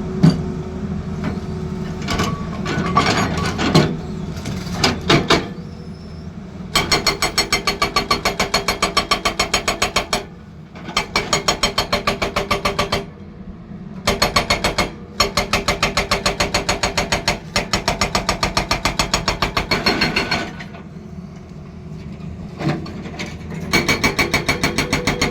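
Hydraulic breaker on a Tata Hitachi Zaxis excavator hammering in long runs of rapid, evenly spaced blows, several a second, with short pauses between runs. The excavator's engine runs underneath, with scattered knocks in the first few seconds before the hammering starts.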